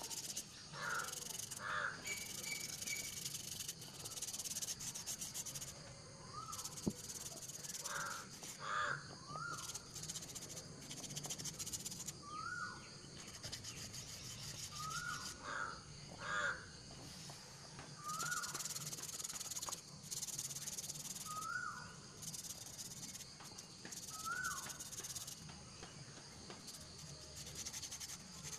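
Sandpaper rubbing by hand on the dried white coating of a bottle pot: spells of dry rasping strokes that stop and start. A bird calls in short rising-and-falling notes every few seconds, more regularly through the second half.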